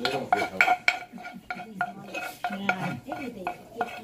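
Metal spoon scraping and knocking inside a wooden mortar, scooping out pounded som tam dressing: a quick run of clinks, about three to four a second, each with a short metallic ring.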